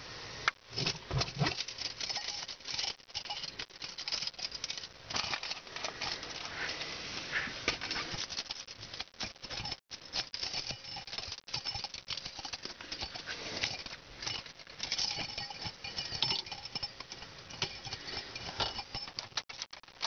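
Wet snow pattering on the car's windshield and roof, heard from inside the car as a dense, irregular run of small taps.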